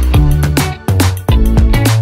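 Background music with a steady beat: drum hits and a bass line.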